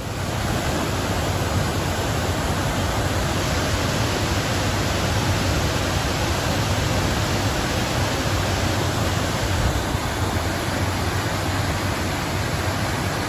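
Waterfall cascading over boulders in a mountain creek: a steady rush of white water.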